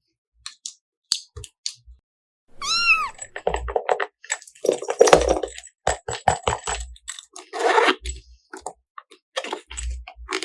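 Slime being squeezed and stretched, with sticky crackling clicks and squelches throughout. About three seconds in there is one short high-pitched squeal that rises and falls.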